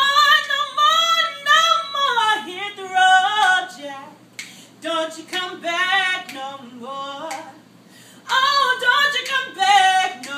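A woman singing unaccompanied: sustained, melismatic phrases with vibrato, broken by short pauses.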